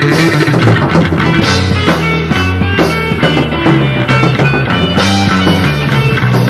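Live improvised rock band playing: electric guitar, bass and drums in a raw, unmixed recording.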